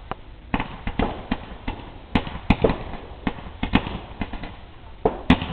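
Fireworks going off in a rapid, irregular series of sharp pops and bangs, about a dozen in a few seconds.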